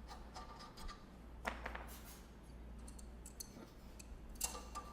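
Faint, scattered metal clicks and taps of a bolt being threaded by hand into an exercise bike's crank arm to pull it off. The sharpest tap comes near the end.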